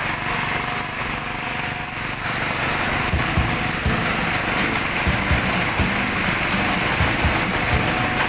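Engine of a concrete pump truck running steadily at a concrete pour.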